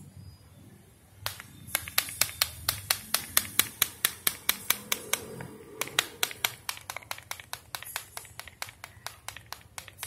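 Banana-leaf-midrib clapper toy (tiktiki or thakthaki) shaken by its base, its two slit, bent-out flaps slapping back against the middle strip in a fast run of sharp clicks, about four or five a second, starting about a second in.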